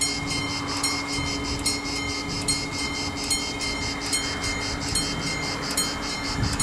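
Level crossing warning bell ringing in a steady repeated ding, about two and a half strikes a second, signalling that the barriers are down for an approaching train, over a low rough rumble.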